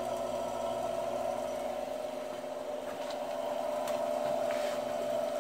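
Atlas 618 metal lathe running at a steady speed, driven through belts and pulleys by a converted treadmill DC motor: a steady whine that holds one pitch.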